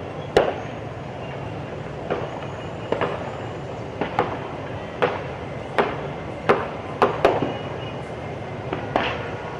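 An irregular series of sharp, echoing bangs, about a dozen at roughly one a second, over a steady low rumble.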